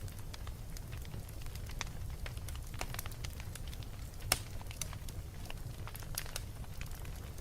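Wood fire burning in a fireplace: scattered crackles and snaps over a steady low rumble, with one sharper pop about four seconds in.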